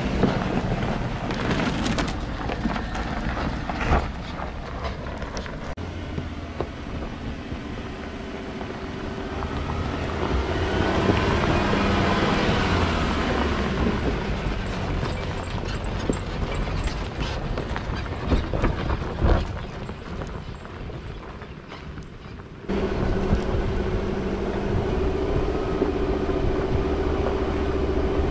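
Four-wheel-drive engine running at low speed on a rough dirt track, with scattered knocks and rattles over the bumps. About three-quarters of the way through the sound changes suddenly to a louder, steadier engine hum.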